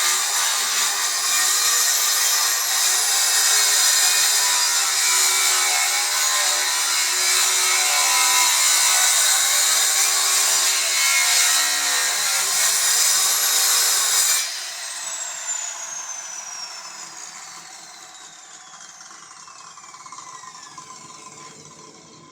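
OKATZ CS7V 7-1/4-inch electric circular saw cutting through wood with a steady high whine. About two-thirds of the way through, the cutting stops and the motor is switched off. The blade then spins down with a falling whine over several seconds.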